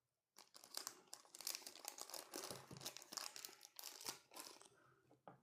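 Faint plastic crinkling and small clicks of close handling, as batteries and their packaging are handled while being fitted into a small electronics kit.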